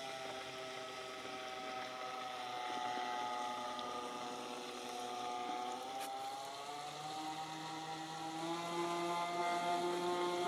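Radio-controlled model speedboat running at speed, its motor giving a steady pitched note. The pitch sags and picks up again around the middle, and the sound grows louder near the end as the boat comes closer.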